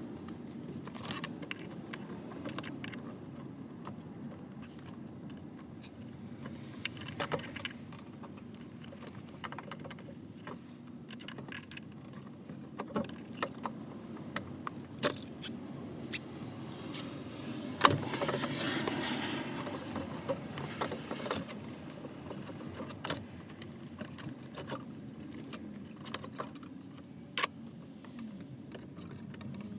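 Small metal clinks, clicks and knocks of hand tools and fuel pump fittings being handled at an open fuel tank access hole, scattered throughout over a low steady hum. One sharper knock comes a little past halfway and is followed by a few seconds of rustling.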